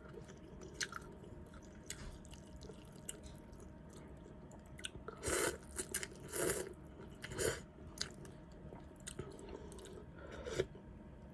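Close-miked chewing of noodle soup, wet mouth clicks and smacks scattered throughout, with a few louder, longer noisy bursts around the middle and once near the end.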